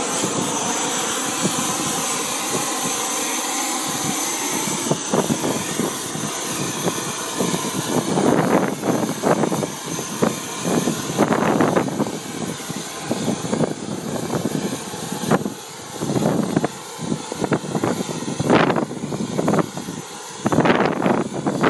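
Wren MW44 kero-start model turboshaft turbine in a Synergy N9 RC helicopter, running at idle with a steady high whine. From about a third of the way in, gusts of wind buffet the microphone on and off over it.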